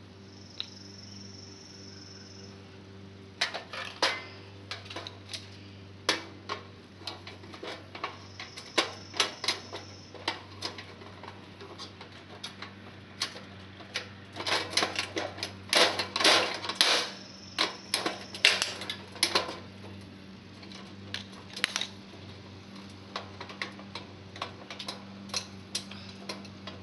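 Quick, irregular metallic clicks and clinks as small metal parts on a sheet-metal heater panel are worked by hand, busiest around the middle. A steady low hum runs underneath.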